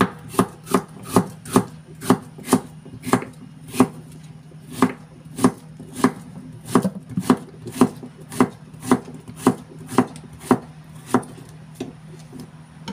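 Kitchen knife chopping chayote into cubes on a wooden cutting board: a steady run of sharp thunks against the wood, about two to three a second, over a faint low hum.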